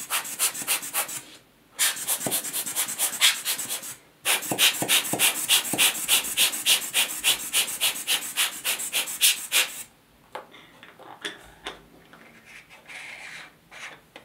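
Rubber air-blower bulb squeezed again and again, blowing dust off a camera lens and UV filter: quick hissing puffs at about four a second, in three runs with short pauses. In the last few seconds only fainter handling sounds.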